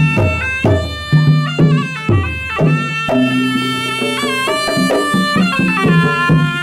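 Traditional pencak silat accompaniment: a reedy wind instrument holds and steps through a melody over repeated drum beats.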